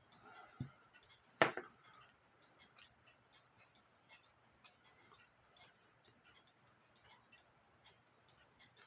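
Light, irregular clicks and taps of small metal music box parts being handled as the comb is taken off the mechanism, with a soft thump about half a second in and a sharper knock about a second and a half in.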